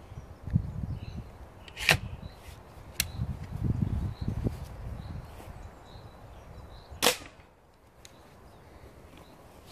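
.177 air rifle (Mercury Chili Edge) fired twice, two sharp cracks about five seconds apart, with a lighter crack about a second after the first. Low rumbling noise comes and goes between them.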